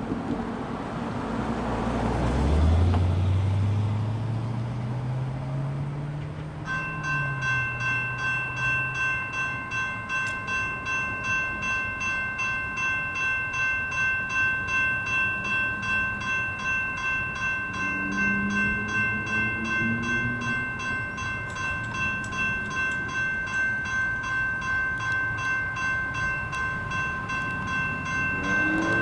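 A car's engine note climbs as it pulls away through the crossing. About seven seconds in, the crossing's GS Type 2 electronic bells start ringing, a steady high ding repeating about twice a second, with a brief low droning tone about two-thirds of the way through.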